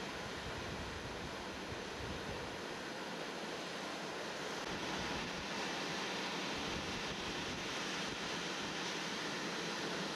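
Ocean surf breaking and washing in a steady rush, with wind gusting on the microphone. It grows a little louder about halfway through.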